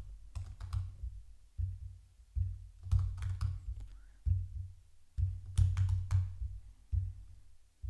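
Typing on a computer keyboard in short bursts with brief pauses between them, as words are entered one after another.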